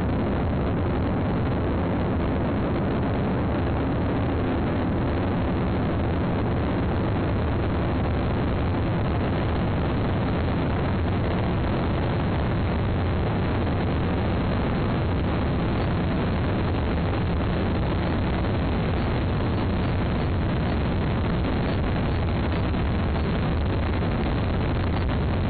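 Long March 2C rocket's first-stage engines at liftoff and climb-out: a loud, steady, deep roar.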